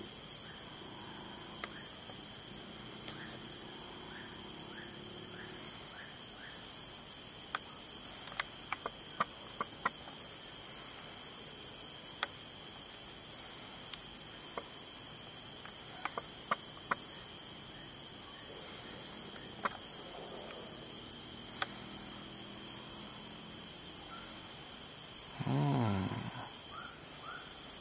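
Night-time insect chorus of crickets: a steady high-pitched trill with a pulsing chirp repeating over it. A few faint clicks come in the middle, and a brief murmur of a person's voice near the end.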